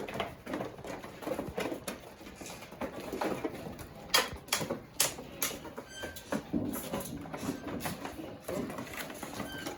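Irregular tapping and scuffling of goats' hooves as a goat is caught and handled, with a cluster of sharper taps about four to five seconds in.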